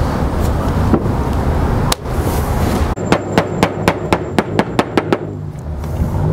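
Hammer striking in quick succession, about ten sharp blows in two seconds starting about halfway in, while a flat concrete roof tile is fixed beside a dormer vent.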